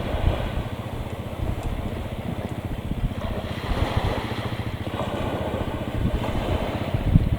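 Gusty wind buffeting the microphone, a low irregular rumble over a steady rushing noise.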